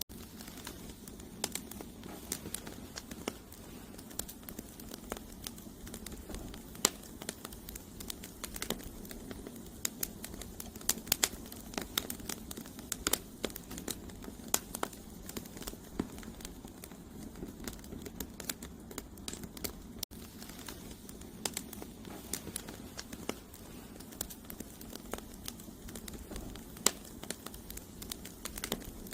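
Campfire of wood logs burning, with irregular sharp crackles and pops over a steady low rushing of flame.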